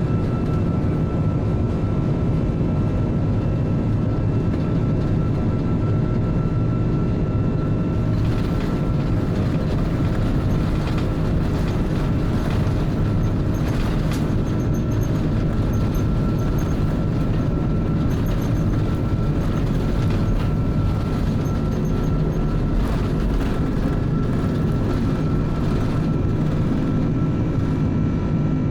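Steady jet engine and airflow noise heard inside the cabin of an Airbus A330-300 during the departure climb. From about eight seconds in, a rougher rattling layer joins the steady rumble.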